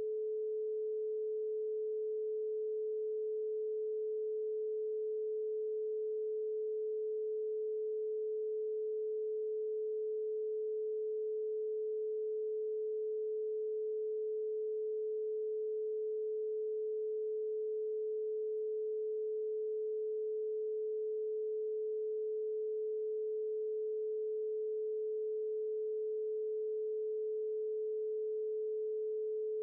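A single steady electronic sine tone, held unbroken at one mid pitch, with no other sound.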